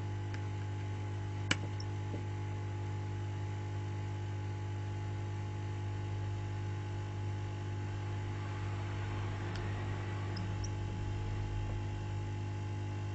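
Steady electrical hum with one sharp click about a second and a half in and a few faint ticks later on, from a small screwdriver and tiny screws being worked on an iPhone.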